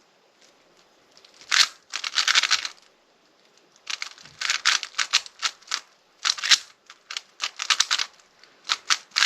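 Rubik's cube being turned quickly by hand: bursts of rapid plastic clicks from the layer turns, separated by short pauses.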